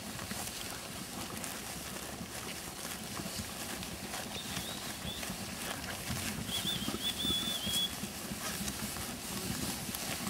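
A flock of Suffolk sheep grazing close by: a steady crunching and clicking of grass being torn off and chewed, with hooves shifting. A small bird gives a short high warble twice near the middle.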